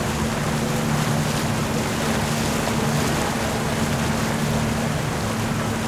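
A motorboat running steadily through the water, with a low, even engine hum under a constant rush of wind and water.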